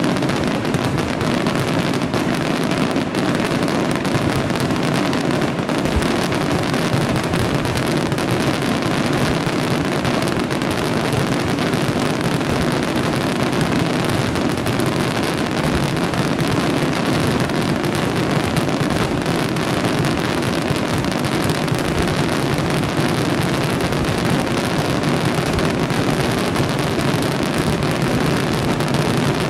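Aerial fireworks going off in a dense barrage: rapid explosions and crackle running together without a break.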